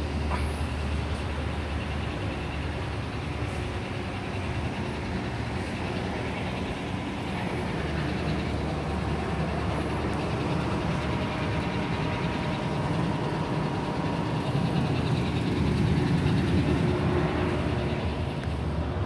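Steady low rumble and hum of background noise in a large exhibit hall, with a faint steady tone, swelling a little near the end.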